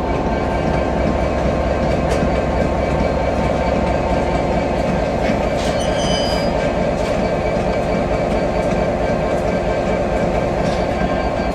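EWS class 66/67 diesel locomotive running steadily while shunting slowly, with a short high metallic squeal from wheels or brakes about halfway through and a few light clanks.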